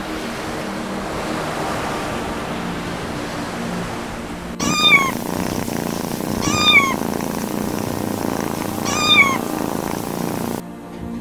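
A steady rushing noise for the first few seconds, then a kitten meowing three times, about two seconds apart, each a short high-pitched call that drops in pitch at the end.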